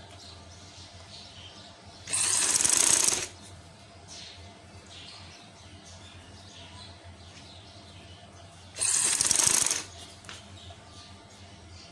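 Sewing machine stitching fabric loops onto a newspaper backing in two short runs, each about a second long and some six seconds apart.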